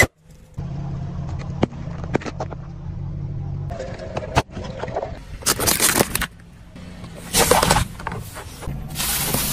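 Car tyre rolling over objects and crushing them, with the car's engine humming low underneath. Several sharp cracks come in the first half, then three loud crunching bursts: a long one in the middle, a shorter one a little later and another near the end.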